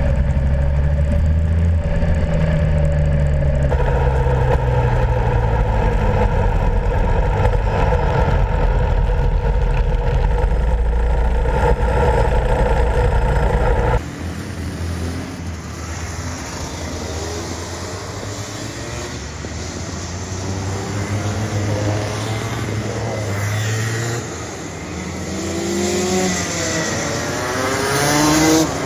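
Two-stroke go-kart engine running on track, its pitch rising and falling with the revs. For the first half it is loud and close, as heard from on board the kart. About halfway through it suddenly becomes the kart heard from trackside: quieter, with the engine note climbing and falling as it laps, loudest near the end as it passes close.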